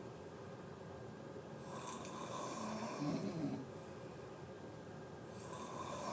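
A person snoring: a long rasping breath about two seconds in ends in a short, low pitched snore, and the next breath starts near the end.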